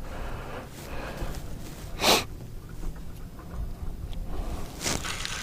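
Wind rumbling on the microphone, with a short sharp hiss about two seconds in and a fainter one near the end.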